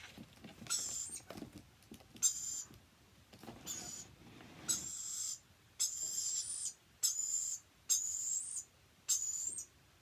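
A lorikeet giving a run of short, harsh, high-pitched hissing calls, about one a second, with faint rustling between them.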